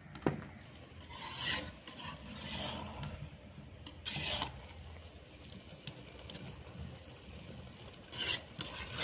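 A metal slotted skimmer scraping and stirring through biryani rice in an aluminium pot: several separate rasping strokes a second or more apart, with a sharp knock about a third of a second in. The rice is being turned as it is readied for dum (steaming).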